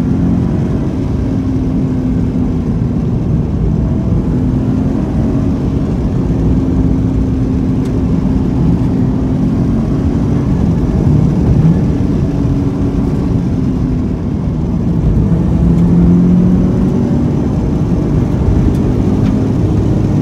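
Scion FR-S flat-four boxer engine with an equal-length header and GReddy muffler, pulling hard through winding corners, heard from inside the cabin over steady tyre and road rumble. The engine note rises and falls with the throttle.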